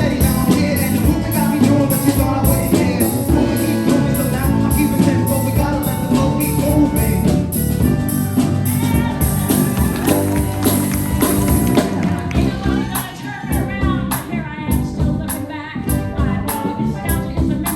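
Live band playing a song with singing and a steady beat; the high cymbal or tambourine strokes drop out about two-thirds of the way through.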